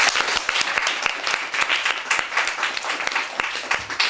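Audience applauding, many hands clapping densely together.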